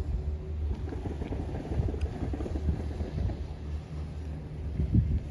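Wind buffeting the microphone over a low, uneven rumble, with a louder gust near the end.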